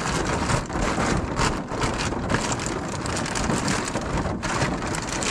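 Rain falling on a car roof, heard from inside the car, with scattered rustling of a stuff sack being handled.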